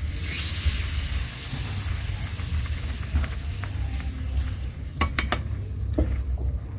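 Batter sizzling as it is ladled into a hot cast-iron waffle mold over charcoal, loudest at first and dying down. A few sharp clicks come about five seconds in, over a steady low rumble.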